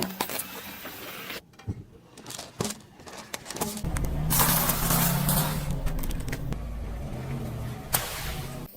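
A car engine running and tyres rolling close by, starting about four seconds in, with a single sharp crack near the end. Scattered small clicks and crackles come before the car.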